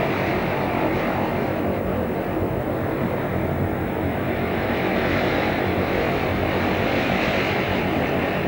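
Propeller aircraft engine running steadily, a constant drone with no change in pitch or loudness.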